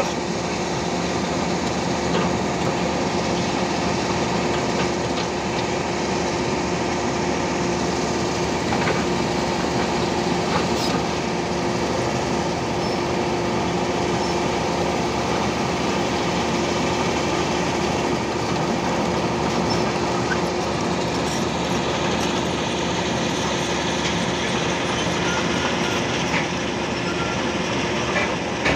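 Hitachi Zaxis 210F hydraulic excavator's diesel engine running steadily under working load as it digs and swings, with a steady whine over the rumble and a few light clanks.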